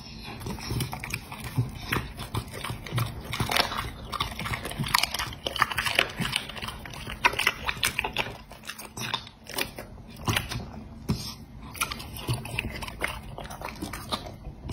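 A dog chewing chunks of cooked meat from a plate: irregular bites and chews in quick succession, easing off briefly about eight or nine seconds in before resuming.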